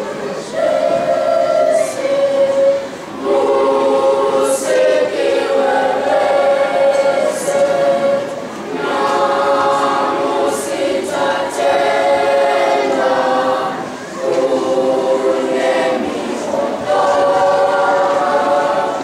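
Children's choir singing, in sung phrases broken by short pauses a few times.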